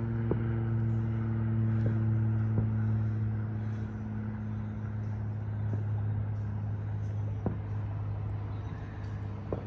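Steady low hum of a running vehicle engine, easing off gradually, with a few faint sharp pops.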